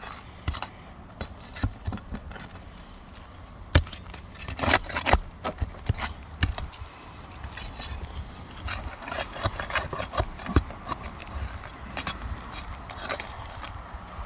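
Irregular clicks, scrapes and crackles of asphalt roof shingles being worked loose and pulled up by hand. There is a sharp snap about four seconds in, followed by a short run of scraping.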